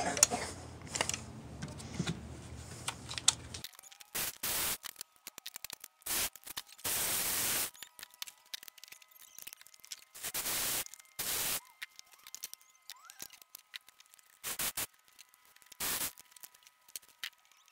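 Spark plugs being unscrewed from the cylinder head with a cordless ratchet: about eight short bursts of the tool running, with light clicks and scraping of the socket and extension being handled.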